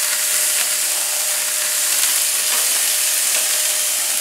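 Lamb chops sizzling on a hot gas grill: a steady high hiss of fat frying on the grates.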